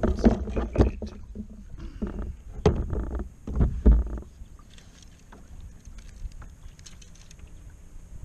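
Fishing rod and paddle knocking and rubbing against the plastic hull of a Pelican Challenger 100 kayak as the gear is handled: several loud knocks in the first four seconds, then only faint ticks.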